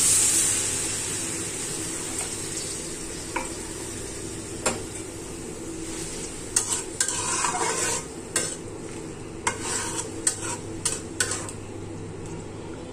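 Water poured into a hot karahi of frying vegetables hisses and sizzles, fading over the first two seconds or so. Then a metal spoon stirs the vegetables, with scattered clicks and scrapes against the pan.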